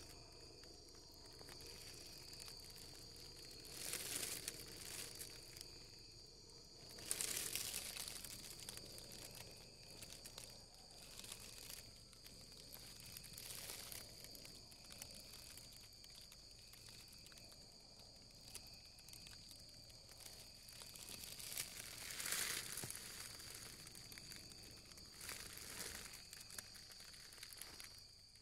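Faint night ambience: a steady high insect trill, with about five wave-like whooshing swells that sound like wind, the loudest a sudden one about seven seconds in and another near twenty-two seconds. The campers take the whooshing for something unidentified passing over the camp, not a helicopter, drone or plane.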